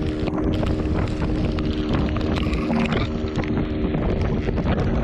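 Boat engine running steadily under way, a low steady hum with wind noise on the microphone and scattered short knocks.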